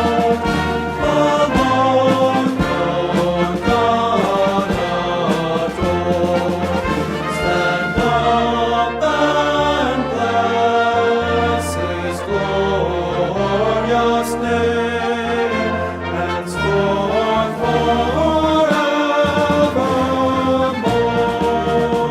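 Worship music: a choir singing a hymn with brass and orchestral accompaniment, steady and full.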